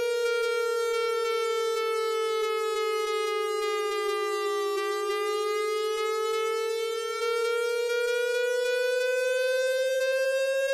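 Slowed-down emergency alarm siren: one buzzy, many-harmonic tone that slowly falls in pitch for about five seconds, then rises again, and cuts off abruptly at the very end.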